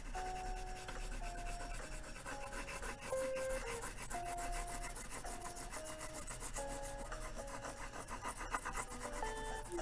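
Wax crayon rubbing on paper in rapid back-and-forth scratchy strokes as an area is filled in with colour.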